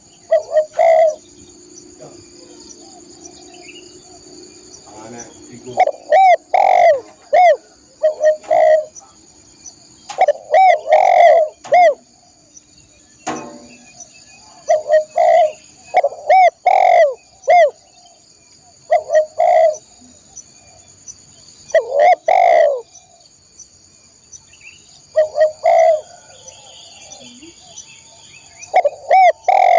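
Spotted dove (tekukur) cooing: repeated phrases of several short arched coo notes, a new phrase every few seconds, over a steady high insect drone.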